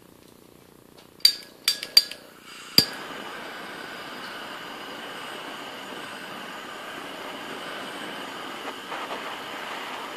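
A handheld gas torch is clicked four times with its igniter, the last click lighting it. The flame then hisses steadily while it heats a steel reciprocating saw blade.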